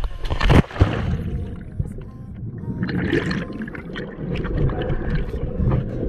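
A person jumping into a deep pool: a loud splash about half a second in, then the muffled rumble and gurgling of water heard underwater.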